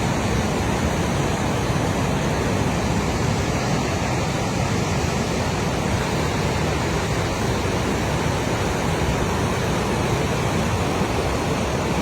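Loud, steady rushing of fast-moving floodwater, a dense unbroken roar with no breaks.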